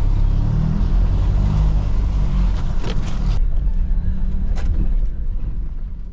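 4x4 vehicle driving a slippery clay track: a loud, steady, low rumble of engine and tyres, with two sharp knocks midway, fading away near the end.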